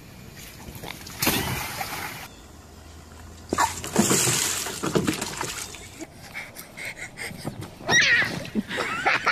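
Water splashing in backyard paddling pools: a short splash about a second in, then a louder rush of water as a bucket of water is poured over a child, with children's voices near the end.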